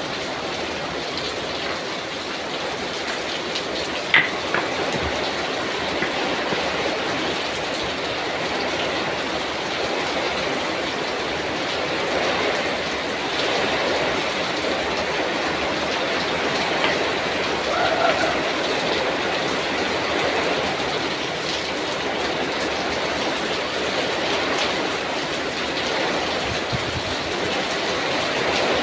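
Heavy rain pouring down in a steady, dense rush, with a single sharp knock about four seconds in.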